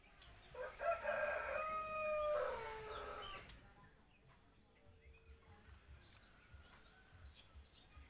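A rooster crowing once: a single long, drawn-out crow of about three seconds, starting about half a second in.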